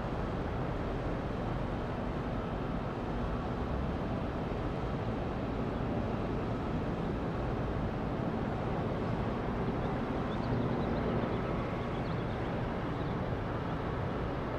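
Jet engine noise of a Boeing 737-800 departing under its CFM56-7B turbofans at takeoff power: a steady low rumble that swells slightly about ten seconds in.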